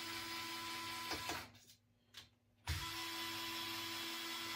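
Torque-settable electric power driver running as it backs out the screws of an air rifle's top rail: one steady run of about a second and a half, a second's pause, then a second run.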